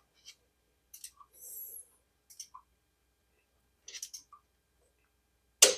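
Click torque wrench tightening the idler pulley's center bolt: a few faint ratchet ticks, then one sharp click near the end as the wrench breaks over at the set 18 ft-lb.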